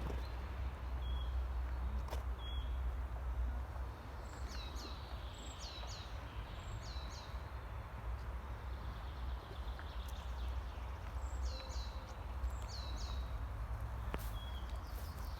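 A small bird calling repeatedly in short high notes that sweep downward, in groups of two or three, with a few short steady notes, over a steady low wind rumble and some faint clicks.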